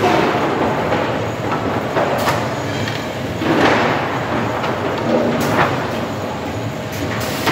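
Board-stacking machine at work: steady mechanical running noise with a few sharp knocks and clatter as its arms handle a stack of short wooden boards, and a louder rush about halfway through.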